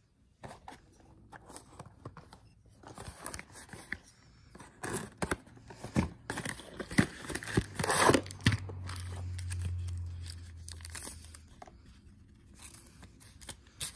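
A cardboard toy box being opened and the black plastic wrapping inside being cut at with a knife: a run of irregular rustling, crinkling and tearing, with scattered sharp crackles.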